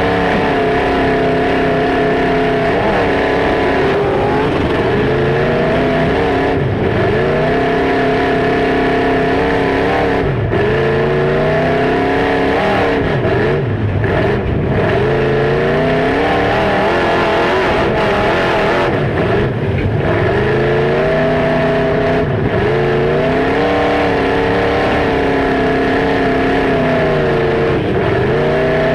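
Demolition derby car engines revving hard, their pitch repeatedly rising and falling as the cars accelerate and back off. The sound is loud and continuous.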